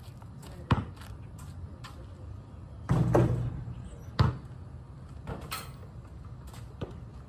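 Basketball bouncing on an asphalt driveway: a few separate sharp bounces, with a louder, longer impact about three seconds in.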